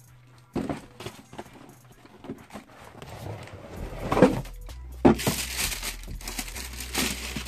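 Phone handling noise: scattered knocks and taps, a sharp thump about four seconds in, then a couple of seconds of scratchy rubbing as the phone's microphone brushes against a shirt.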